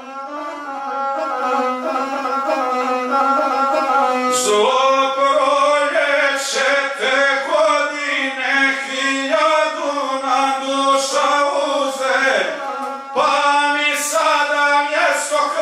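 A man singing an epic song in the Serbian guslar style, accompanying himself on the gusle, a single-stringed bowed folk fiddle. A held note for the first four seconds gives way to sung phrases that bend in pitch over the gusle's line.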